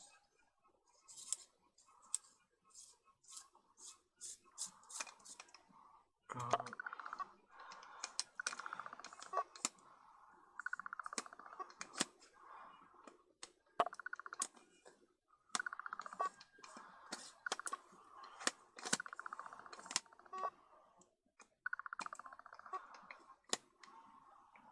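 Vivitar Series 1 70-210mm zoom lens parts being handled: many small sharp clicks, and stretches of fine rasping that start and stop, like threaded lens rings being turned. A low thud about six seconds in.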